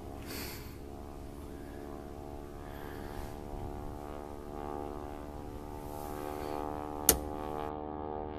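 Background music: a sustained droning chord that swells in gradually, with one sharp click about seven seconds in.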